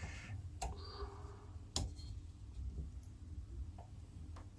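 A few light, separate metallic clicks as a 2.5 mm Allen key is worked in the grub screw of a bath mixer tap's handle, retightening it.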